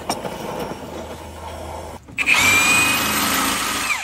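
Oxy-acetylene torch flame hissing as it heats a seized cab-bolt cage nut. About two seconds in, a power tool starts up and runs loud and steady with a high whine, spinning the heated bolt out, and winds down at the end.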